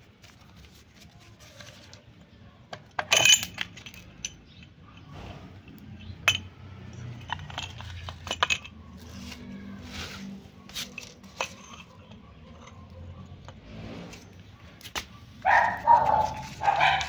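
Scattered metal clinks and taps of tools and parts while a scooter's rear gearbox casing and gears are worked on. Near the end, a dog barks several times, louder than the clinks.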